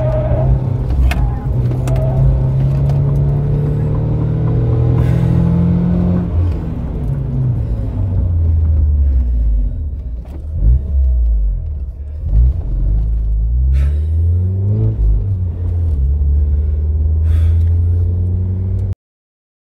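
Fiat Punto HGT engine heard from inside the cabin, held at high revs at first, then dropping in pitch as the car slows from about 80 km/h. Around the middle the revs rise and fall a few times, then the engine runs steadily at low revs until the sound cuts off suddenly near the end.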